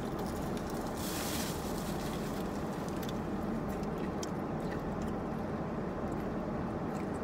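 Steady low rumble of a car idling, heard from inside the cabin, with a brief hiss about a second in.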